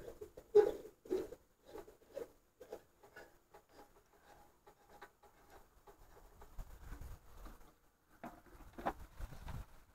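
Scattered small clicks and taps of hands handling the plastic housing and latch of an outdoor lamp fixture, with a sharper tap about half a second in and a few more near the end.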